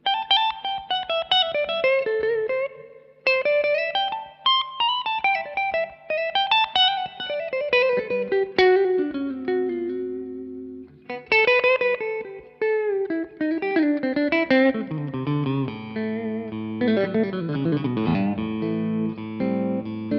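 B&G Little Sister Private Build electric guitar played clean through a Suhr Badger 35 amp, with reverb: phrases of single picked notes that run down in pitch. There are short breaks about three and eleven seconds in, and the notes become denser and more overlapping in the second half.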